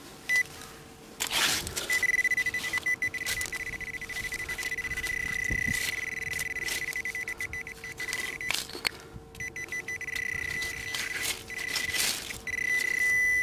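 Handheld metal detecting pinpointer sounding a steady high beep while held among wet pebbles over a buried metal target, with short clicking pulses and a brief dropout around nine seconds in. The alert marks metal close to the probe tip. Stones knock against the probe now and then.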